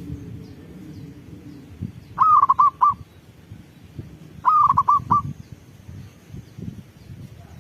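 Zebra dove (perkutut) cooing: two phrases, each a drawn-out first note followed by three or four quick short coos, about two seconds apart. Faint low rumbling and light knocks underneath.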